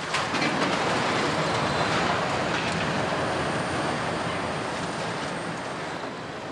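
Kobelco demolition excavators working a concrete rubble pile: engines running under load with the grinding and clatter of broken concrete as their crushers work the debris, slowly fading out.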